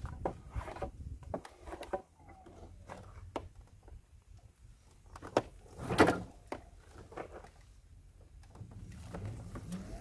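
Scattered clicks and knocks from a scooter-style electric bike being handled at the handlebars, with one louder knock about six seconds in. Right at the end the electric motor starts a rising whine as the bike pulls away.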